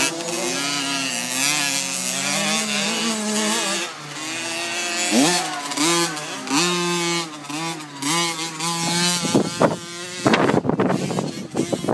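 KTM 50 mini motocross bike's small two-stroke engine being ridden hard, its pitch climbing and dropping in steps as the throttle opens and closes. Near the end wind buffets the microphone.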